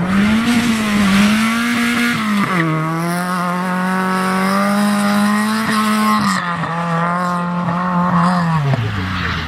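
Fiat Seicento rally car's engine at full throttle. Its pitch climbs and drops sharply with two gear changes, then falls away as it comes off the throttle near the end.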